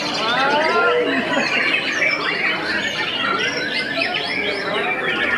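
Several white-rumped shamas singing over one another: a dense, unbroken mix of whistled notes sweeping up and down in pitch, with quick harsh runs among them.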